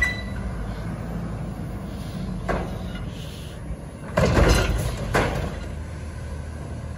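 Front-loading garbage truck's engine running steadily while its arms hold a container up over the cab to dump it. A bang about two and a half seconds in, then a burst of loud bangs a little after four seconds and one more just after five, as the load is shaken out into the hopper.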